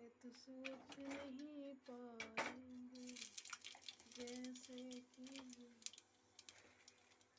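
A woman's voice humming softly in short phrases. There is a sharp clink about two and a half seconds in, and faint crackling through the middle as seeds hit the hot oil in a pressure cooker.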